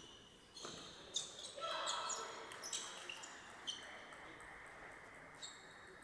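A table tennis ball being hit and bouncing on the table: a series of sharp, ringing clicks at irregular intervals as a rally ends, then the ball bouncing a few more times.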